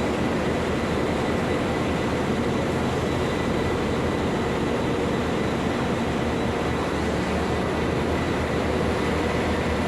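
Northern Ireland Railways diesel trains running steadily at the platforms: a constant low engine drone with a faint, steady high tone above it.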